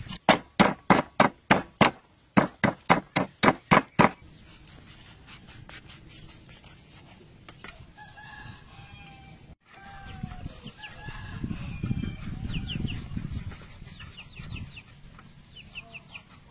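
Knife blade scraped hard and fast across a raw pig's trotter on a wooden chopping board, about four strokes a second in two runs over the first four seconds. Afterwards it is much quieter, with a few short bird calls in the background around the middle.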